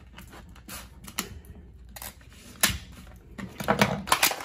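Clear plastic blister packaging crackling and clicking as a scraper is worked out of it and off its cardboard backing card. Irregular sharp clicks, with one louder snap near the middle and a flurry near the end.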